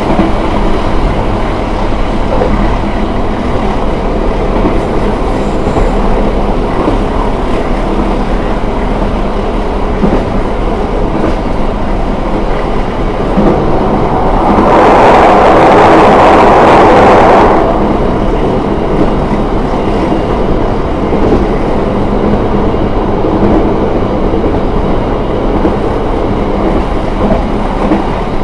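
KA Taksaka passenger train running on the rails with a steady running noise. Midway a louder rushing noise swells for about three seconds, then falls back.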